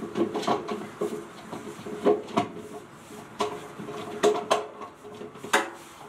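Irregular knocks and clicks of a top-load washer's agitator parts being turned and seated into place, with the sharpest knocks about two, four and five and a half seconds in.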